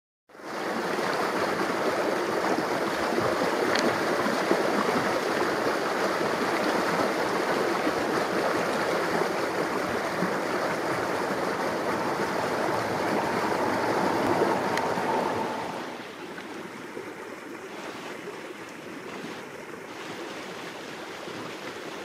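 Steady rushing noise that drops to a quieter level about sixteen seconds in.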